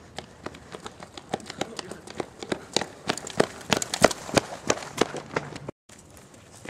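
Footsteps of several people running on a concrete sidewalk, a quick patter of shoe strikes that grows louder as the runners come up close. The sound drops out for a moment near the end.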